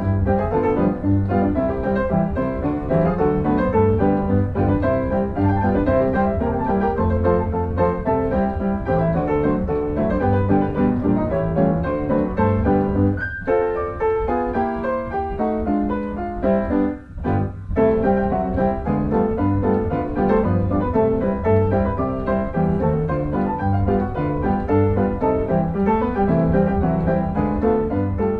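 Background piano music with a steady rhythm, briefly breaking off twice near the middle.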